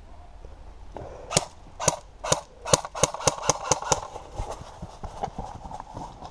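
Airsoft gun firing a string of about nine sharp single shots, about half a second apart at first and coming faster toward the end.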